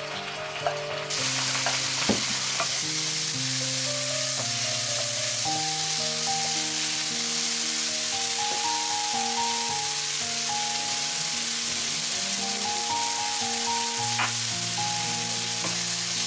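Zucchini slices sizzling steadily as they fry in oil in a pan, stirred with a wooden spoon; the sizzle sets in about a second in. Background music with piano-like notes plays under it.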